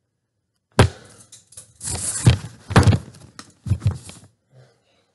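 A run of irregular knocks and clunks from hard parts being handled: one sharp knock about a second in, then several more over the next three seconds, stopping near the end.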